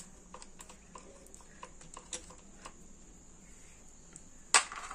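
Light, irregular metallic clicks of an Allen key and small parts being worked on a bolt on the clutch side of a motorcycle engine, then one louder, short clatter near the end.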